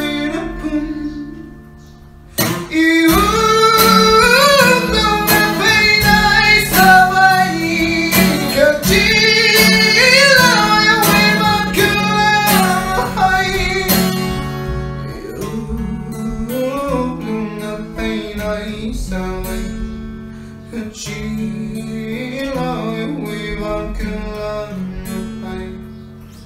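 A man singing a Tangkhul song to his own strummed acoustic guitar. After a brief pause about two seconds in, the strumming and singing come back loud and full, then ease into softer playing about halfway through.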